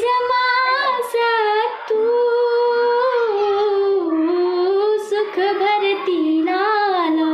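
A young woman singing solo, holding long notes with vibrato and sliding between pitches from phrase to phrase.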